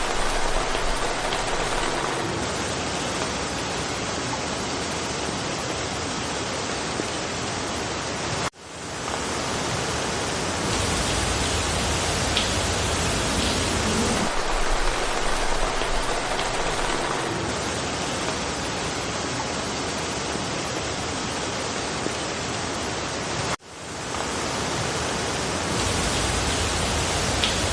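Steady rain falling through forest, a dense even hiss. Twice, about fifteen seconds apart, the sound cuts out suddenly and fades back in over a second or so, where the looped recording restarts.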